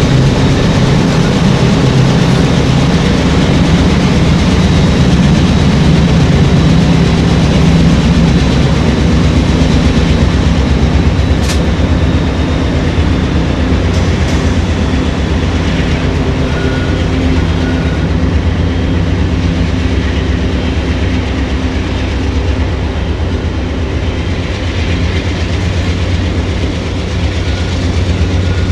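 A train passing over a railroad bridge: a loud, steady rumble of wheels and cars rolling by.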